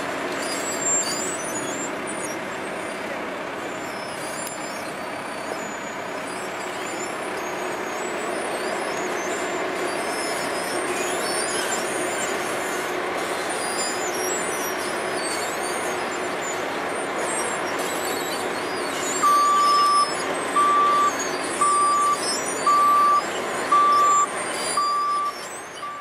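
Diesel engines of an asphalt paver and roller running steadily. About two-thirds of the way through, a reversing alarm starts beeping about once a second, six beeps in all.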